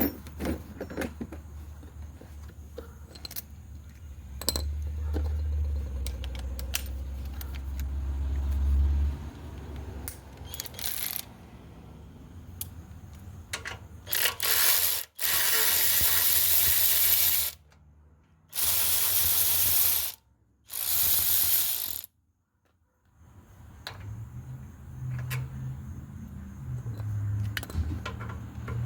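Ratchet wrench working loose the bolts of a Predator 212 engine's crankcase cover. Scattered clicks and knocks come first, then three loud runs of rapid ratcheting, each a second or two long, past the middle.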